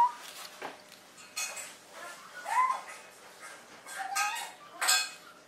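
A toddler's brief high-pitched squeals and coos, sped up to double speed, scattered among light clicks and taps.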